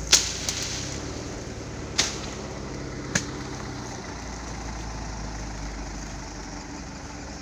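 A vehicle engine running steadily at idle, with three sharp knocks: one just at the start, the loudest, then one about two seconds in and another about a second later.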